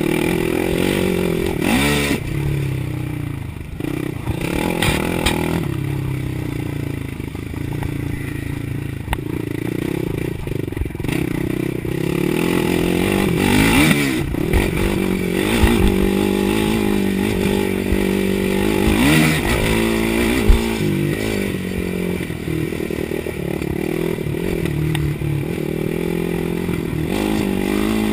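Suzuki LT-R450 quad's single-cylinder four-stroke engine running under way, revving up and easing off again and again with the throttle, with rattling from the chassis over rough ground. A sharp knock stands out about two-thirds of the way through.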